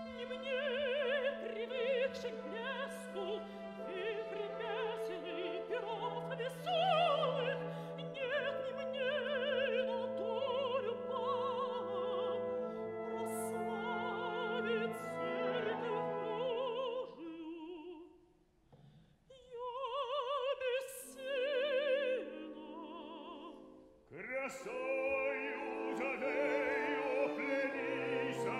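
Operatic singing in Russian over an orchestra holding sustained chords. A mezzo-soprano sings with wide vibrato, there is a brief pause about 18 seconds in, and then a man's voice takes up the duet.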